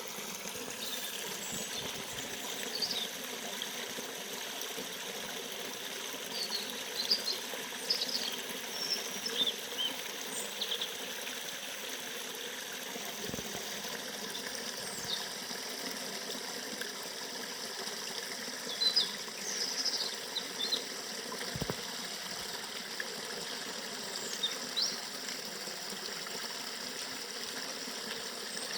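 Forest river running steadily, with birds chirping in short high calls at intervals, several in a cluster about a quarter of the way in and again about two-thirds through.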